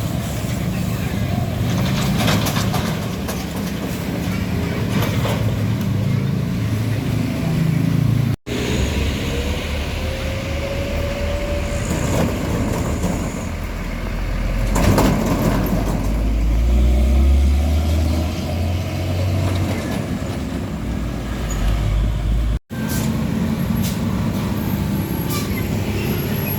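Heavy trucks driving past on a road, engines running with a deep rumble that swells in the middle stretch, in three short segments separated by abrupt cuts.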